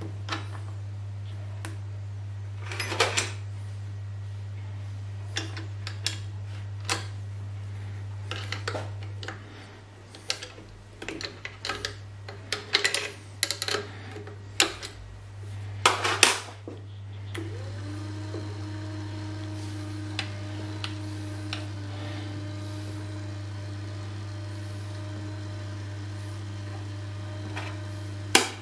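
Sharp metallic clicks and knocks of a wrench and parts being handled on the milling machine's power feed. About two-thirds of the way through, the power feed's electric gear motor starts and runs with a steady whine. A steady low hum lies under it all.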